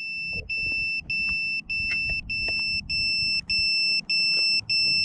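Electronic buzzer on an FPV quadcopter beeping steadily with its motors stopped: a run of about nine high, even beeps, each about half a second long with short gaps, getting slightly louder. Faint rustling and light knocks sit underneath. This is typical of the quad's lost-model beeper.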